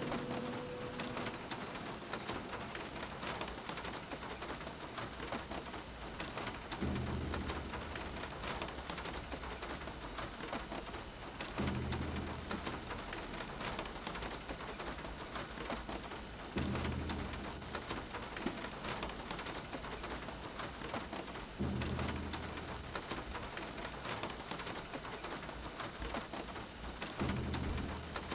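Steady rain hiss with a low booming pulse about every five seconds, each about a second long.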